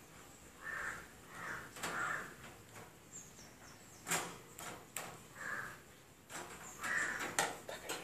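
A parrot's beak working a padlock on a wire cage door: a series of sharp metallic clicks and rattles, mixed with several short rasping sounds.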